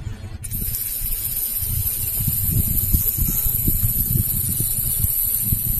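Wind buffeting the microphone in uneven gusts, with a steady high-pitched hiss setting in about half a second in.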